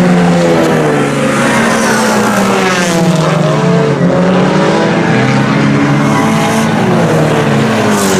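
A pack of IMCA Sport Compact race cars at racing speed, their four-cylinder engines revving as they lap. Several engine notes rise and fall and overlap as the cars go through the turns.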